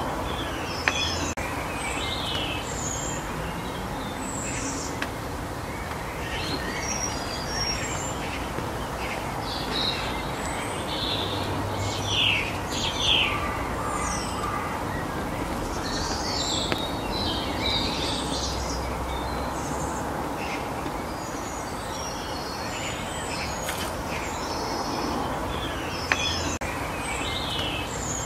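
Small birds chirping and calling in short high notes over a steady outdoor background hiss, with the loudest chirps about halfway through. There are two sharp clicks, one about a second in and one near the end.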